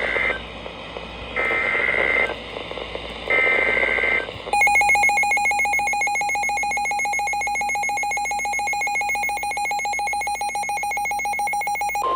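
Emergency Alert System header: three short bursts of screechy digital data tones, then about seven and a half seconds of the steady, harsh two-tone attention signal that announces an alert, which cuts off abruptly.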